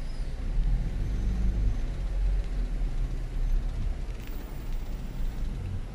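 Low, steady rumble of a car's engine and running noise, heard from inside the cabin as the car moves slowly and turns.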